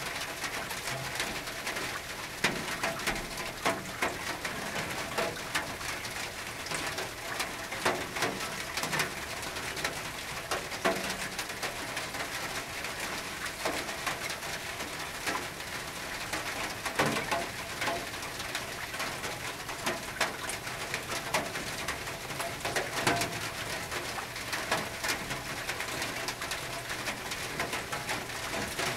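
Rain falling on a tin roof: a steady patter with many irregular louder drops striking the metal.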